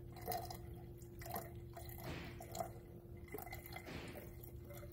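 Coolant poured into a plastic overflow reservoir, trickling and splashing in a run of short dribbles over a faint steady hum.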